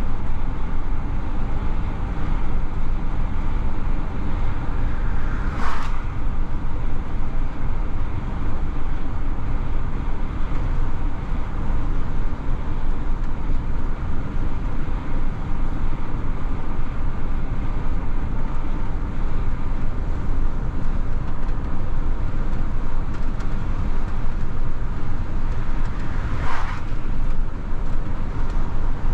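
DAF XF truck driving on the road: steady engine and tyre rumble. Two brief hiss-like sounds cut through, about six seconds in and near the end.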